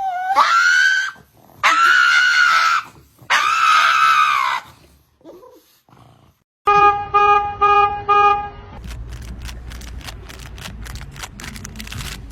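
An animal gives three long, high, drawn-out cries, the first rising in pitch. A few seconds later come four short, even, horn-like beeps, then a run of clicks.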